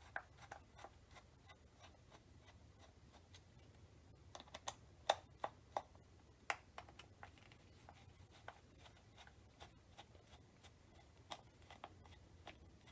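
Faint scattered clicks and scratches of a Phillips screwdriver backing two screws out of a Magpul Hunter rifle stock's butt pad, with a cluster of louder clicks a few seconds in.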